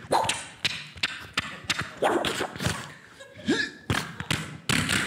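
Vocal sound effects made into a handheld microphone: a quick run of mouth-made thumps, knocks and clicks broken by short rising and falling vocal sweeps, voicing the impacts of a mimed fight.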